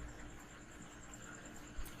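Faint steady hiss with a thin, evenly pulsing high whine; near the end soft low thumps begin, in a steady beat, as of hands tapping on the head during a head massage.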